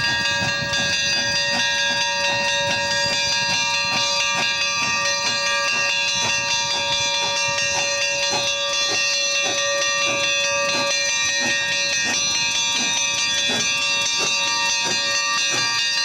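Steam locomotive's bell ringing steadily as the engine moves slowly along the platform, with a low rhythmic chuffing from its exhaust beneath.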